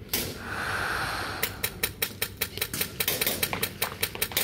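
Airsoft guns firing a rapid string of sharp cracking shots, several a second, after a short hiss at the start.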